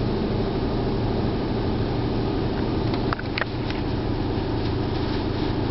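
Automatic tunnel car wash heard from inside a truck's cab: a steady rumble of water spray and wash machinery on the body, with a low steady hum under it. A few brief high squeaks come about three seconds in.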